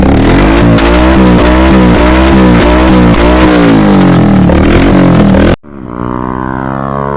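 Bajaj Pulsar 150's single-cylinder engine through an aftermarket SC Project exhaust, revved in quick repeated throttle blips, about two a second. It cuts off abruptly about five and a half seconds in, followed by a quieter, steadier pitched sound.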